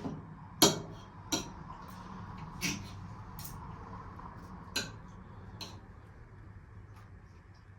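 Knife and fork clicking and clinking against a plate during eating, in about half a dozen short separate strikes.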